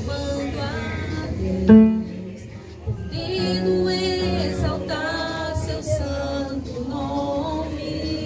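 A woman singing a hymn into a microphone, amplified through PA loudspeakers, her voice holding long sung notes, with a brief louder note about two seconds in.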